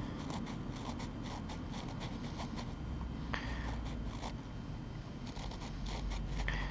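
Gloved fingers rubbing caked dirt off a small wheat cent, a run of light scratchy ticks and scrapes, done to clean the coin enough to read its date.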